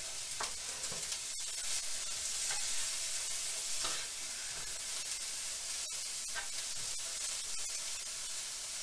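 Bean sprouts, cabbage and onion sizzling with a steady hiss in a hot nonstick frying pan as they are stir-fried, with scattered scrapes and clicks of a plastic slotted spatula tossing them. The vegetables are being cooked to drive off their moisture.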